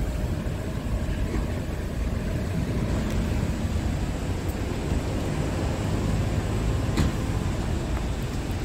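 Scania R450's 13-litre inline-six diesel idling with a steady low rumble, with one sharp click about seven seconds in.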